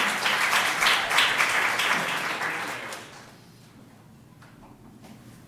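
Audience applauding, many claps together, dying away about three seconds in and leaving quiet room tone.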